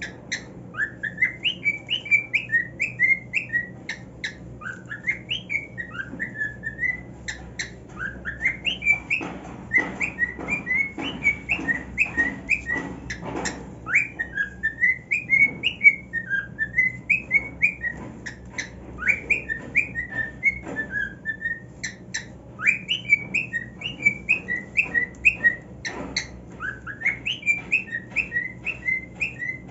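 Male cockatiel singing: phrase after phrase of quick, rising and falling whistled notes, with short pauses between phrases. Scattered sharp clicks sound in among the song.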